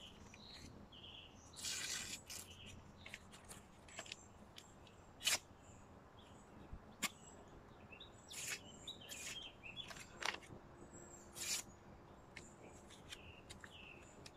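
A bushcraft knife cutting a slightly damp paper receipt: a couple of short rasps of the blade through the paper amid light paper rustles and small clicks. Faint bird chirps in the background.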